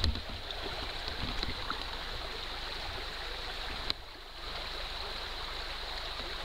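Steady rushing of a flowing stream, with a single sharp click about four seconds in.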